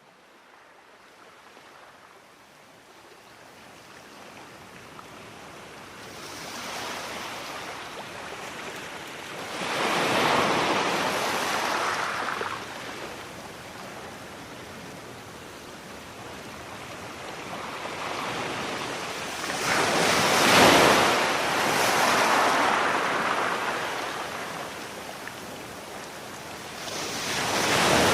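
Sea waves washing onto the shore, fading in from very quiet and then coming in slow surges that swell and fall back every several seconds.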